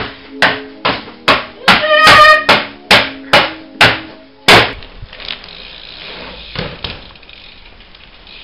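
Bicycle floor pump worked in quick strokes, about two a second, each stroke a sharp clack with a squeak, inflating a BMX tyre; the strokes stop after about four and a half seconds, leaving a low steady hiss.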